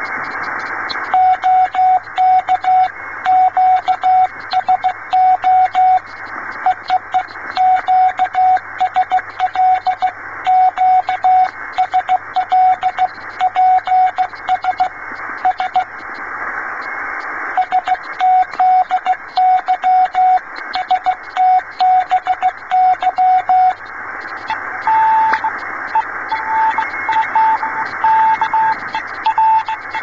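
Morse code (CW) received on a shortwave amateur radio transceiver tuned to 21.009 MHz: a clear keyed tone sends dots and dashes over steady band hiss. Over the last five seconds a second, weaker signal at a higher pitch keys in.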